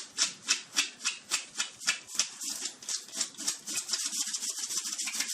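A dog digging on command, its paws scratching rapidly at a surface in quick strokes, about four to five a second.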